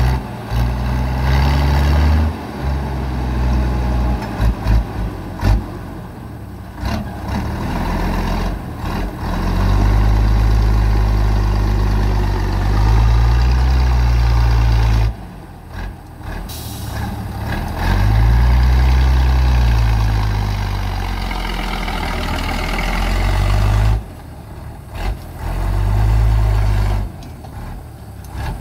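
Engine of a homemade six-cylinder logging truck labouring up a steep, slippery mud slope, revving in long surges that rise and fall, easing off briefly twice. A short hiss comes about halfway through.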